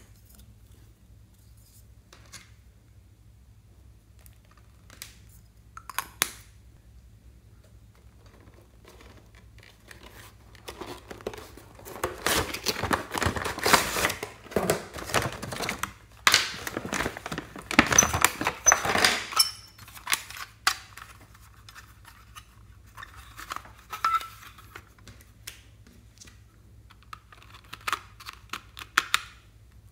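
Close-up handling of a plastic toy makeup palette: scattered plastic clicks and taps, a dense stretch of rattling and crinkling in the middle lasting several seconds, and near the end quick scratchy ticks as a plastic applicator digs into the pressed glitter eyeshadow.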